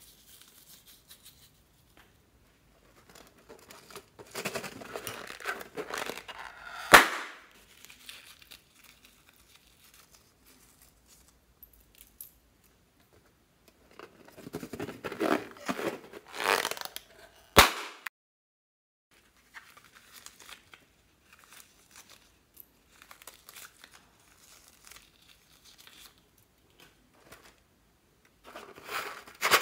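Rubber balloons being handled, squeezed and cut open with scissors: two spells of rubbing and rustling, each ending in a single sharp snap, about seven and seventeen seconds in, with softer handling noise near the end.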